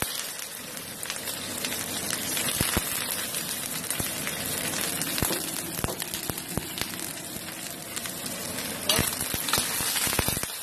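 Sliced onions sizzling in a little hot oil in a steel wok: a steady frying hiss with many small crackles.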